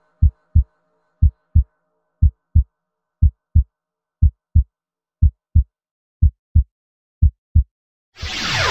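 Heartbeat sound effect: a steady lub-dub of low double thumps about once a second, eight times. Near the end a loud whoosh with a falling sweep cuts in.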